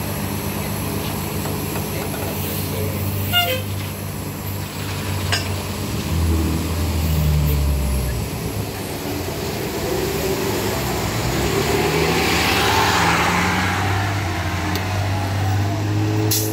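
Diesel engine of a 2012 New Flyer D60LFR articulated bus pulling away from a stop. It runs at idle, works harder around six seconds in, eases, then pulls again with rising pitch as the bus drives off. A short beep about three seconds in.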